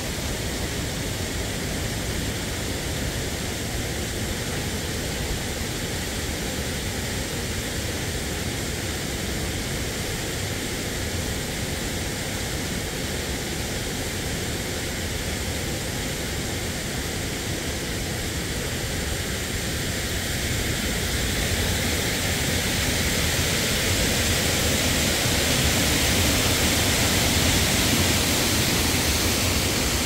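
Waterfall: steady rushing of falling water, growing louder and brighter about two-thirds of the way through.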